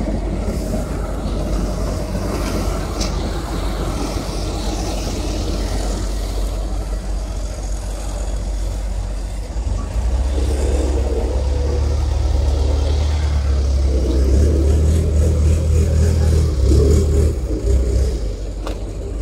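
Long-tail boat's engine running at a steady low drone, with water rushing along the hull and wind. It gets louder about halfway through.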